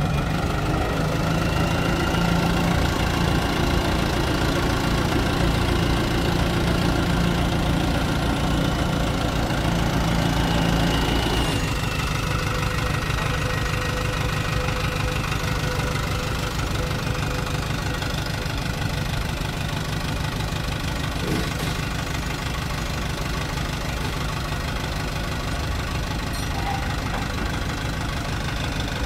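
Dump truck's engine running hard to drive the hydraulic hoist as the tipper body lifts, then dropping abruptly to a steadier, quieter run about twelve seconds in while the body is lowered.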